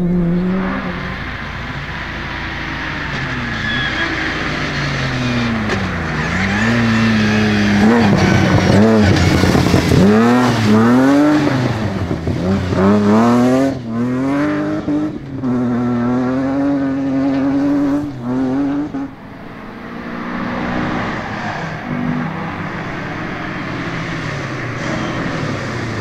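Rally car engines driven hard on a loose gravel stage, several cars in turn. The engine notes climb and fall with gear changes and throttle. Loudest in the middle, where the revs swing quickly up and down over and over as a car slides and spins its wheels in the dirt.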